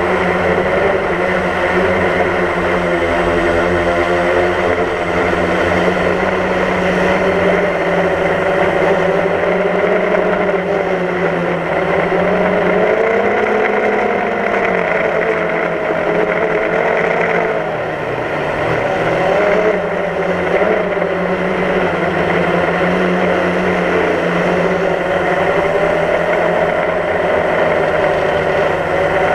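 DJI Phantom quadcopter's electric motors and propellers whirring up close from on board, a steady whine that wavers up and down in pitch as the drone changes its thrust. The sound drops briefly about eighteen seconds in.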